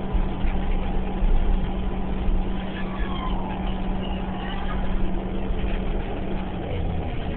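Interior of a New Flyer Xcelsior XDE40 diesel-electric hybrid transit bus under way: a steady drivetrain hum over road rumble, the hum dropping to a lower pitch near the end.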